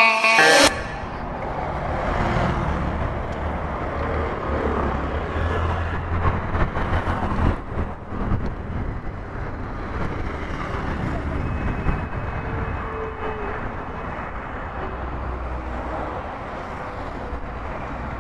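Steady wind rush and road noise from a motorcycle riding along a flyover, with the bike's engine humming low underneath and traffic passing. Background music cuts off suddenly right at the start.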